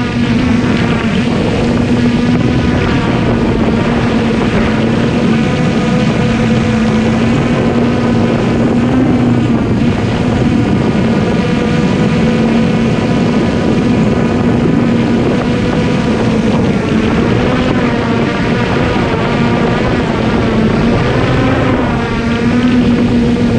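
Traxxas Aton quadcopter's propellers and motors running in flight, heard from a GoPro mounted on the drone itself: a loud, steady pitched hum whose pitch wavers slightly up and down as it manoeuvres.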